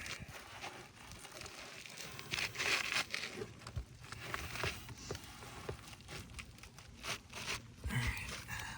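Asphalt roofing shingle being handled and worked against the neighbouring shingles: irregular gritty scraping and rustling with small knocks.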